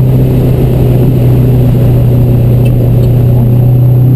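Subaru EA81 1.8-litre flat-four engine in a converted Fiat 500 running at a steady pace under way, a constant low hum with wind rumbling on an outside-mounted microphone.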